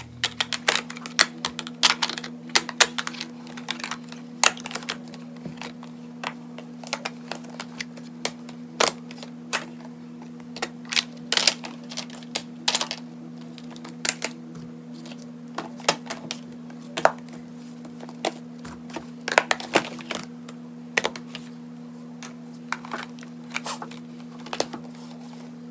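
Eyeshadow palette cases clacking and tapping against each other as they are picked up and stacked by hand: many sharp, irregular clicks, over a steady low hum.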